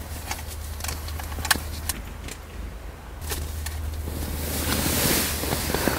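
Rustling and scattered light taps inside a small tent, over a low steady hum. The rustling grows from about three seconds in and is loudest near five seconds.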